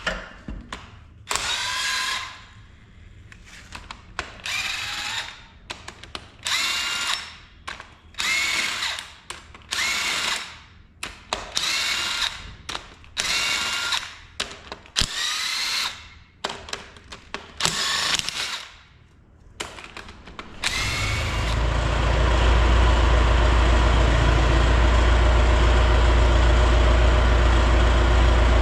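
Power tool run in about a dozen short bursts, each spinning up in pitch, as bolts are run out during the engine teardown. About two-thirds of the way through, a loud steady low machine hum starts and carries on.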